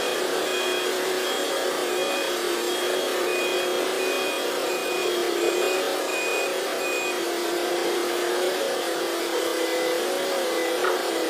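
An engine running at steady speed, a constant drone without rises or falls, with a faint high beeping repeating about once a second.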